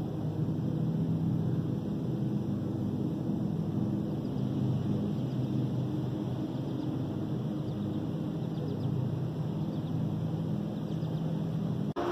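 Steady low mechanical drone with several held pitches, with faint ticks higher up in the middle; it breaks off abruptly near the end.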